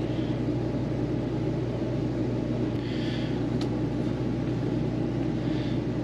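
Steady low mechanical hum, with a faint click about three and a half seconds in.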